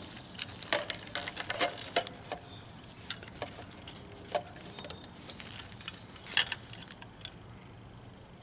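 Hard plastic parts of a fuel filter assembly clicking and knocking as a part with a new rubber seal, eased with a little oil, is forced into its place. The clicks come in irregular clusters, the loudest about a second in and again near six and a half seconds.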